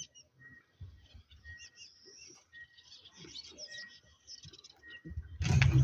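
Birds chirping softly in a string of short calls, with a few faint knocks. Near the end a much louder splashing of water starts abruptly.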